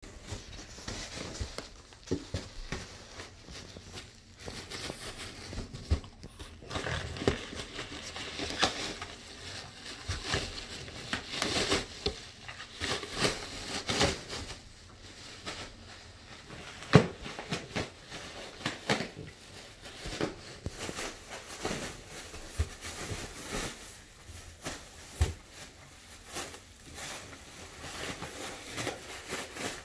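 A French bulldog rummaging in a cardboard delivery box, crinkling and rustling the plastic packaging and tearing at the cardboard. The rustling and crackling come in irregular bursts, with scattered knocks and one sharp bump about halfway through.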